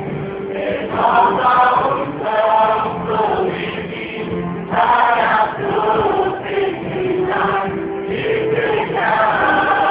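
Choir singing a Christian worship song with music, in phrases a second or so long.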